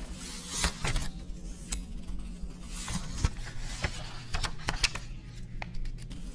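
New Taiwan dollar cash being handled: a string of irregular sharp clicks and taps, about a dozen, unevenly spaced.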